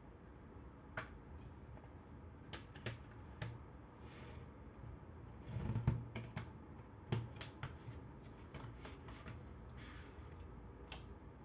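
Plastic CD jewel case being handled and opened, with the paper booklet worked out from under the front-cover tabs: faint scattered clicks and ticks of plastic, with a louder cluster of clicks and rustling about halfway through.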